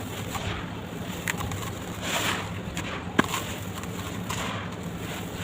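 Red dirt crumbling and crackling by hand, a scatter of small crisp crackles with one sharp snap about three seconds in, over a low steady hum.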